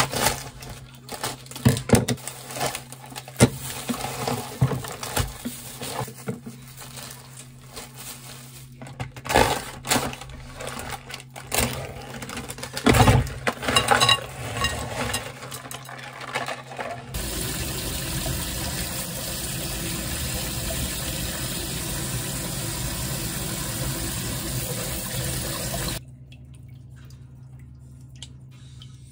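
Scattered clicks and knocks of kitchen items being handled, then a kitchen tap runs steadily for about nine seconds and shuts off suddenly.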